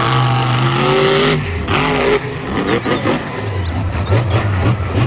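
Monster truck engine revving hard, its pitch climbing, dropping briefly about a second and a half in, then rising and falling again as the throttle is worked.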